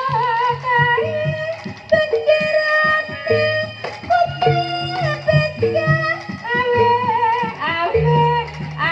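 Live East Javanese jaranan ensemble music: a wavering high melody line over repeated low beats.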